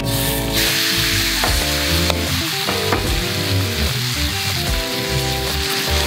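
A thick beef steak sizzling in a hot frying pan, with a sharp burst of sizzle in the first half-second as the meat is laid in, then a steady sizzle as it sears.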